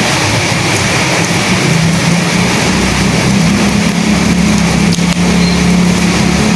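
Steady rain and wind: a dense, even hiss of rain, with a low steady hum underneath that grows stronger about three seconds in.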